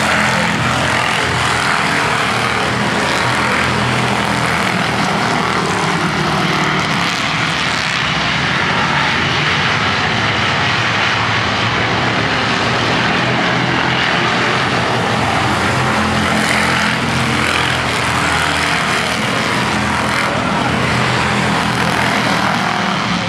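Street stock race cars' engines running hard as the field circles the short oval, a loud, steady engine drone with no break.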